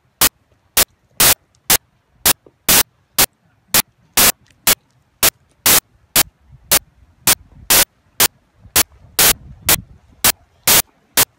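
Loud, short bursts of hissing static, about two a second, each cutting in and out sharply over a faint low background: a digital audio glitch in the recording.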